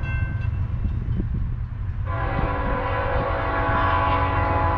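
Freight train's diesel locomotive horn: a blast fades out just after the start, then a long multi-tone blast begins about two seconds in and holds, over a steady low rumble of the approaching train.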